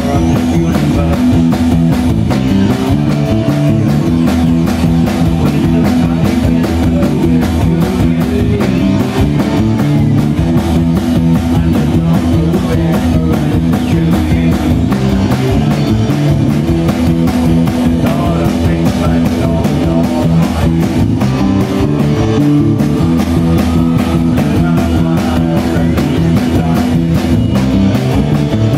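Live rock band playing loud, with electric guitar and a drum kit driving a fast beat, heard through a smartphone's microphone.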